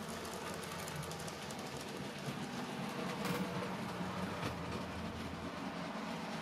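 N gauge model trains running on the track: a steady hum of wheels and motors with a quick patter of small clicks.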